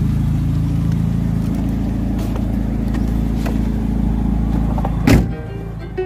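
Small pickup truck's engine idling steadily with a low, even hum, then a single loud thump about five seconds in as the driver's door is shut.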